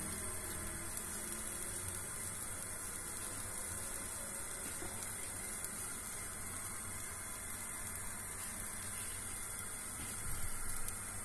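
Steady background hiss with no distinct events, and a brief low rumble near the end.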